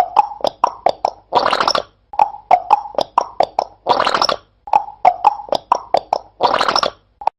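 A parrot making a rhythmic, beatbox-like run of sharp popping clicks, each run ending in a longer hiss. The pattern repeats three times, about every two and a half seconds.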